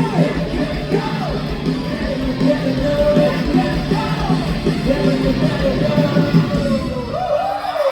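Rock band playing live, heard from the audience: distorted electric guitars, drums and bass under loud sung vocals. Near the end the drums and bass drop out for a moment while the voices carry on.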